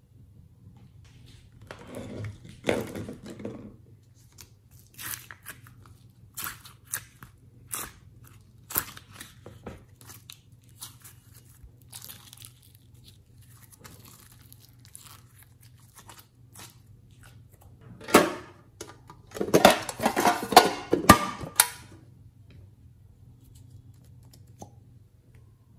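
Glossy slime stretched, folded and squeezed by hand, giving sticky crackles and pops. A cluster comes about two seconds in, single pops are scattered through the middle, and a dense run of crackling comes about three quarters of the way through.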